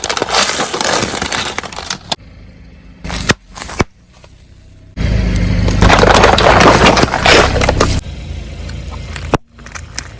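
A car's tyres rolling over and crushing drink bottles and other objects, with crunching and crackling, in several short cut-together clips. There are two sharp cracks in the middle, then the loudest crush comes with the car's engine humming under it.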